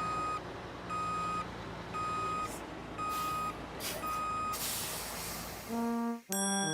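Cartoon sound effect of a truck's reversing alarm beeping about once a second over a low engine hum, followed by a short hiss like an air brake. Near the end comes a brief run of tones stepping down in pitch.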